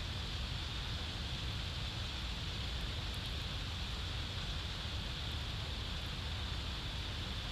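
Steady wind noise on an outdoor microphone: a fluttering low rumble under an even hiss, with no distinct calls or knocks.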